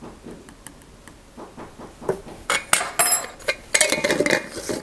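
A spoon clinking and scraping in a glass jar of salt, then the jar's lid being screwed on: a run of sharp clinks and grating scrapes in the second half.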